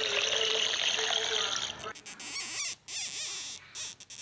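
Running water that stops abruptly about two seconds in, followed by short spells of high, wavering squeaks.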